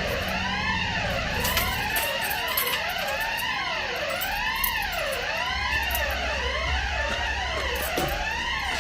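Bank security alarm siren sounding continuously with repeated rising-and-falling electronic sweeps, a little more than one a second. It is a false alarm, caused by a fault in the alarm system.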